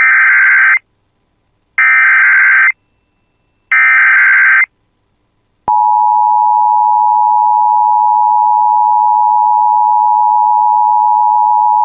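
Emergency Alert System header: three short bursts of SAME digital data tones, each about a second long with about a second between them. About six seconds in comes the steady EAS two-tone attention signal, which announces that an emergency alert message is about to follow.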